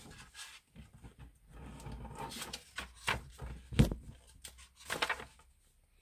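Pages of a paperback picture book being turned and handled: paper rustling, with several short knocks as the pages are laid flat, the loudest about four seconds in.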